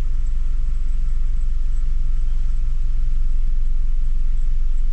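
Steady low rumble of a car heard from inside the cabin: engine and road noise from the car moving slowly or idling.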